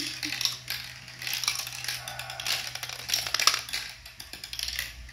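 Glass marbles clicking and clattering through a plastic marble-run track and dropping into the catch tray, in irregular bursts, over the steady low hum of the battery-powered marble elevator's motor.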